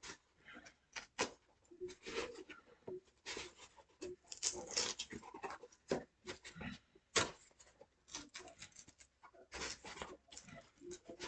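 Cardboard shipping box being opened by hand: irregular scraping, tearing and rustling of tape and cardboard, with sharp clicks.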